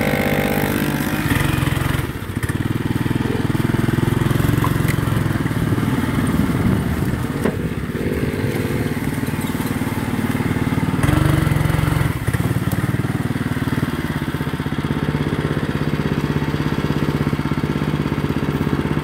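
Small go-kart engine running as the kart drives over dry leaves, its pitch rising and falling with the throttle, together with a small dirt bike engine.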